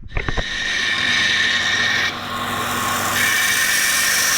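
A handheld power tool working metal, running steadily with a brief drop in level about two seconds in, after a few short clicks at the start.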